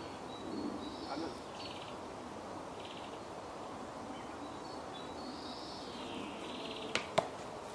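A small songbird singing, two phrases of high whistled notes and short buzzy trills, over faint outdoor hiss. Two sharp clicks come near the end.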